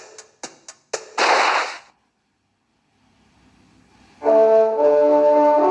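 A few sharp clicks and a short noisy whoosh, a brief silence, then brass music with loud held chords starting about four seconds in.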